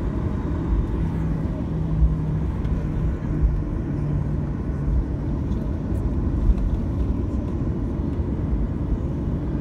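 Jet airliner cabin noise while taxiing onto the runway: the engines running with a low, steady rumble and hum, with a few dull thumps from the wheels rolling over the pavement.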